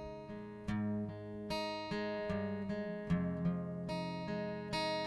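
Instrumental music: an acoustic guitar playing slow, gentle chords, a new chord struck every half second to a second and left to ring.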